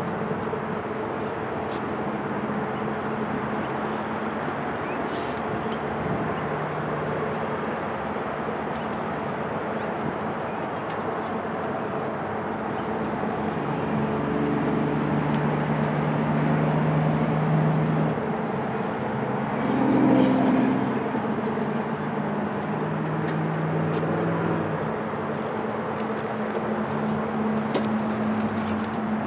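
Steady hum of motor traffic, growing louder as vehicles pass between about halfway through and twenty seconds in, with a few faint high ticks.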